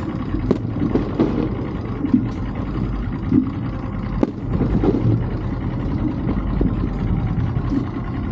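Small outboard motor idling steadily, with a few sharp bangs of fireworks shells bursting over it.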